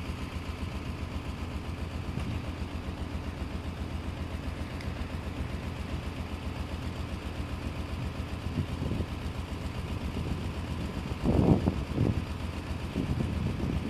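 A small engine running steadily at idle, with a fast even pulse. A few louder muffled noises come over it about three-quarters of the way through.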